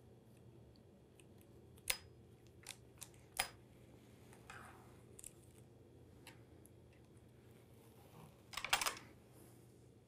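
Quiet handling of a Montessori buckle dressing frame: a few small sharp clicks of the metal buckles and straps around two to three seconds in, a soft rustle, then a louder cluster of clicks and rustling near the end as the frame's flaps are folded open.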